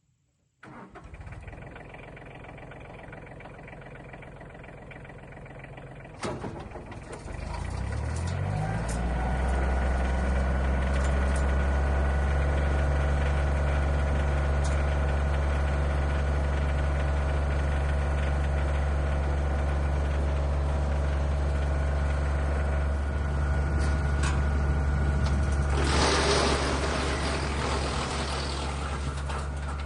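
Frontier DH8 wood chipper's engine starting and running, then throttled up about seven seconds in, its pitch rising until it runs steadily at full speed. A short loud rushing noise breaks in about twenty-six seconds in.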